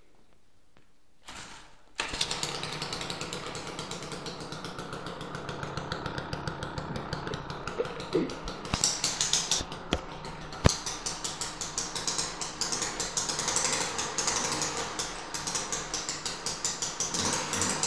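Sachs Saxonette bicycle engine, a small two-stroke, catching on a cold start about two seconds in and then running with a rapid, steady firing rhythm.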